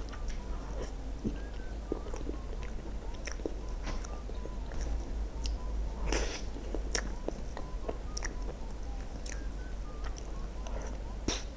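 Close-miked eating: biting and chewing, with many small mouth clicks and a few louder bites, the strongest about six seconds in.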